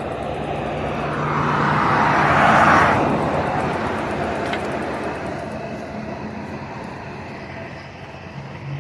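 A vehicle passing by. Its noise swells to a peak a little over two seconds in, then fades away slowly over several seconds.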